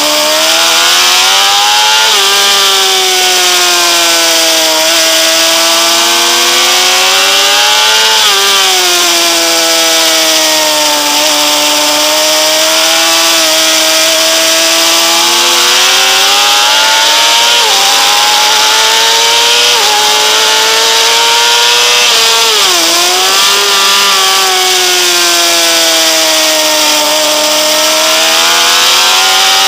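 Honda CBR600RR's inline-four engine at high revs under hard riding, its pitch rising and falling through the corners with several sudden jumps at gear changes, over a steady rushing noise.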